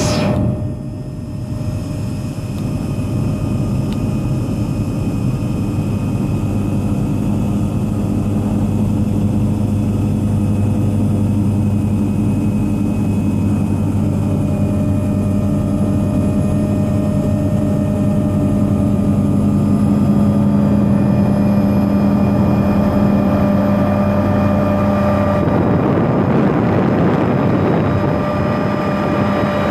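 Helicopter heard from inside the cabin: a steady turbine whine over a low rotor drone as it descends to land. About 25 s in, the low drone eases and a rougher hiss takes over as it settles over the helipad.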